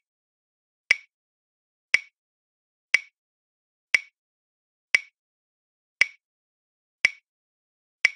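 Countdown timer tick sound effect: a short, sharp tick once a second, eight in a row, with silence between.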